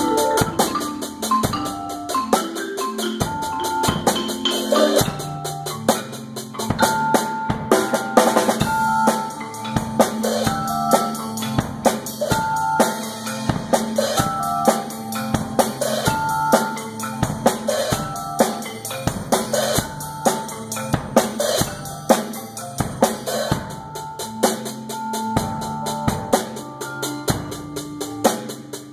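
Marimba played with four mallets together with a drum kit in a group percussion improvisation: repeating pitched marimba notes over a steady drum beat with bass drum and snare.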